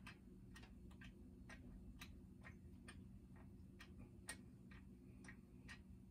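Faint, sharp ticks, about three a second and slightly irregular, from a corroded outboard lower-unit bolt as it is turned by hand: the corrosion in the threads catching and letting go.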